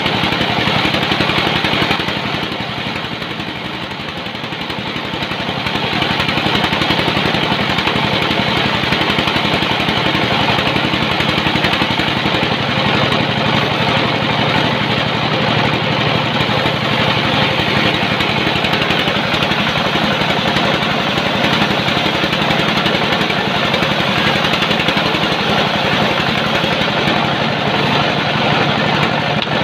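Engine-driven sawmill running steadily while sawing a log. The sound drops and softens for a few seconds about two seconds in, then comes back to full level.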